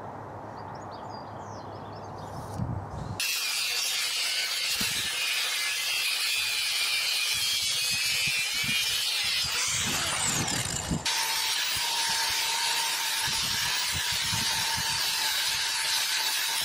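Angle grinder with a cutting disc cutting through steel angle iron, starting suddenly about three seconds in and running steadily. About eight seconds later the sound changes and a steady motor whine comes through as the grinding goes on.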